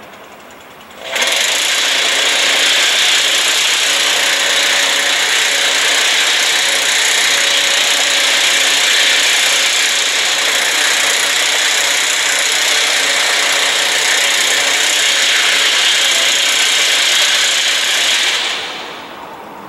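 A power tool running steadily at high speed, starting abruptly about a second in and winding down near the end.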